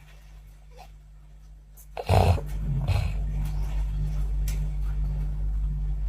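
A person snoring: a sudden loud snort about two seconds in, with a smaller one right after, then a steady low hum that runs on at a raised level.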